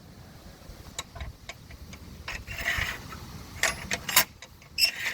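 Steel drop rod of a picket gate latch clicking as it is slid in and out of a freshly drilled hole in concrete: a series of irregular light clicks with a brief scrape near the middle, showing the rod fits the hole easily.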